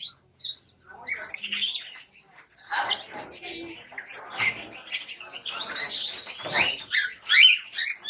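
Many caged small birds, finches and parakeets, chirping and twittering at once in short overlapping calls.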